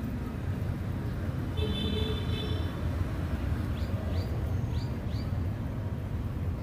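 Steady low outdoor rumble. About one and a half seconds in, a brief high steady tone sounds, and four short rising chirps follow a couple of seconds later.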